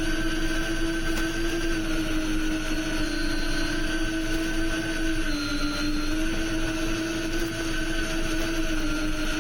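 FPV quadcopter's motors and propellers whining at a steady pitch, dipping slightly lower about five seconds in as the throttle eases, then coming back up.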